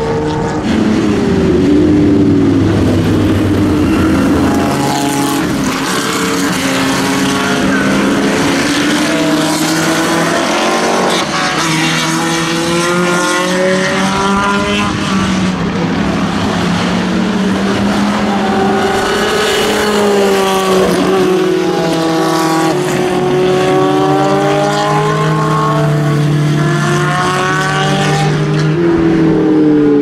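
A succession of historic sports-racing cars passing on a wet circuit, each engine rising in pitch under acceleration and dropping through gear changes, with overlapping passes, over a hiss of tyre spray.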